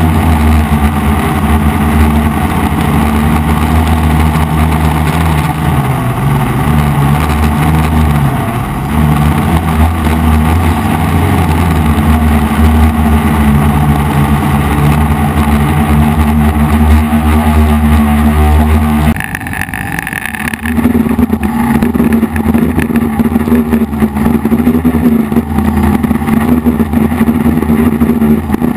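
DJI F450 quadcopter's four motors and propellers buzzing loudly, the pitch drifting up and down as the throttle changes. About two-thirds of the way through, the buzz drops away abruptly for a couple of seconds, then picks up again.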